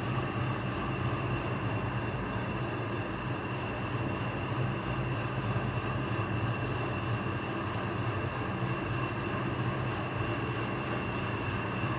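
AC TIG welding arc on an aluminium motorcycle cylinder block, a steady low buzz with a faint high whine, running without a break.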